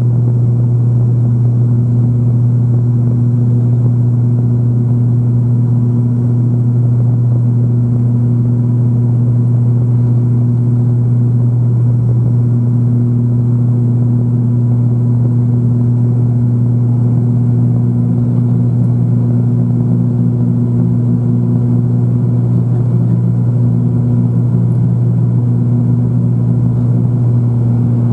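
Steady drone of a turboprop airliner's engines and propellers heard inside the cabin in flight: a strong low hum with a few fainter steady tones above it.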